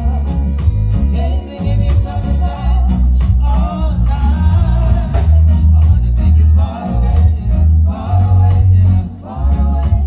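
Live reggae band playing with a deep, heavy bass line and steady hi-hat ticks while a woman sings into a microphone, all through big stage loudspeakers.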